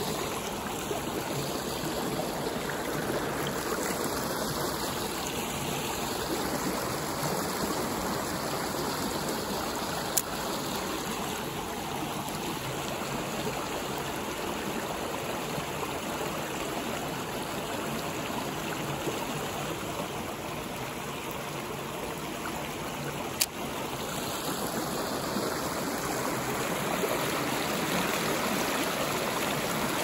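Shallow creek riffle: water running steadily over rocks. Two brief sharp clicks cut in, about ten seconds in and again about twenty-three seconds in.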